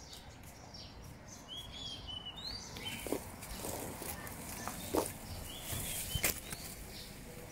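Quiet outdoor background with small birds giving a few short chirps and a handful of sharp clicks.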